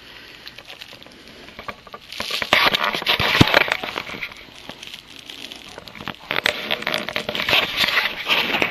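Clear plastic pouch crinkling and crackling as it is handled, in two spells: one starting about two seconds in and another from about six and a half seconds.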